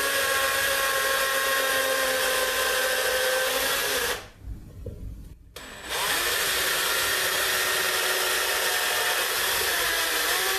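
Cordless drill running steadily into a wooden board in two long runs. It stops for about a second and a half around four seconds in, then spins back up.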